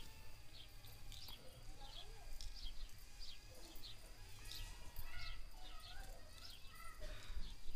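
Small birds chirping in quick, short calls, two or three a second, over a faint steady high-pitched whine.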